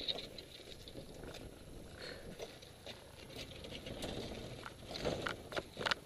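Motorcycle tyres rolling slowly over a gravel and dirt path with the engine silent, giving faint crackling and scattered ticks that come more often near the end.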